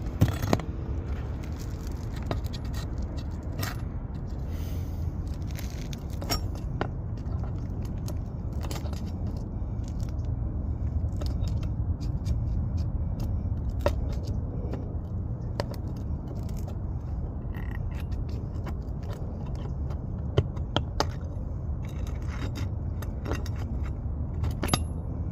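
Metal tool scraping and clicking against asphalt shingles as roofing staples are pried out and shingles worked loose, in scattered short scrapes and sharp clicks. A steady low rumble runs underneath.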